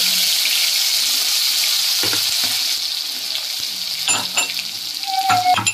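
Ginger sizzling as it fries in hot mustard oil in a kadhai. The sizzle is loudest as the ginger goes in and slowly dies down, with a few light clicks near the end.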